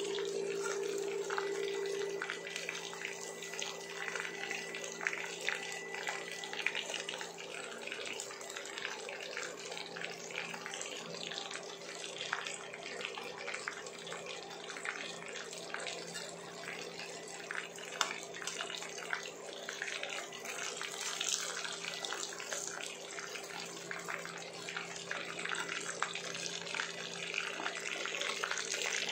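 Breaded chicken pieces shallow-frying in hot oil in a pan: a continuous dense sizzle and crackle, with scattered louder pops. A steady low hum runs underneath.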